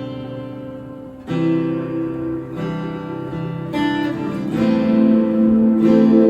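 Acoustic guitar played through effects, strummed chords ringing on in a slow instrumental passage. A new chord comes in about every second, the first loud one about a second in.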